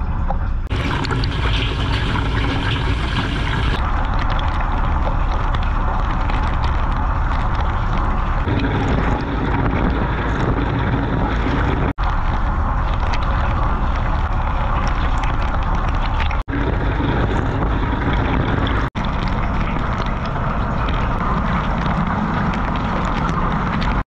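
Water jets spraying and splashing inside a running dishwasher, heard from within the tub: a loud, steady wash of water noise with a strong low rumble. It cuts out for an instant three times in the second half.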